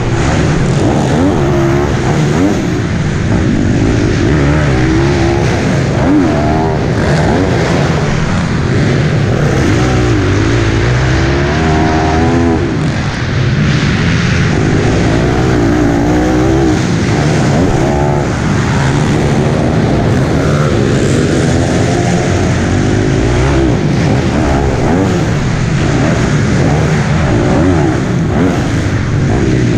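Piranha P190R pit bike's single-cylinder four-stroke engine, heard close up from on board, revving up and down without a break as the bike is ridden hard around a dirt motocross track.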